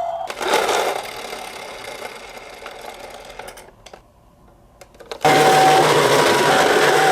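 Whirring rattle of a toy minicar's wheels rolling down a slope, fading away over a few seconds. A little after five seconds a Japanese-style two-tone hi-lo ambulance siren ("pii-poo") starts, switching between a higher and a lower tone about every 0.7 s.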